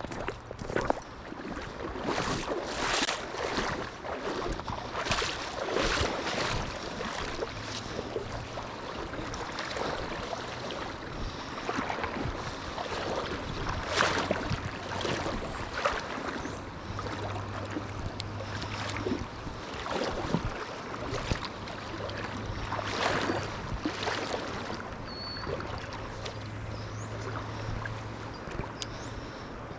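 River water rushing, with wind on the microphone.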